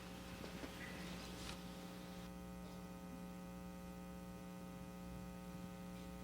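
Quiet, steady electrical mains hum, a buzz of many even tones, with a faint tick about a second and a half in.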